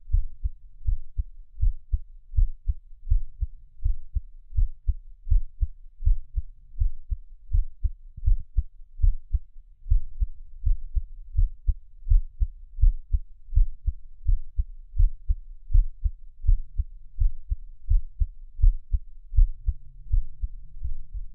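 A person's heartbeat: a steady, regular run of low, dull thumps.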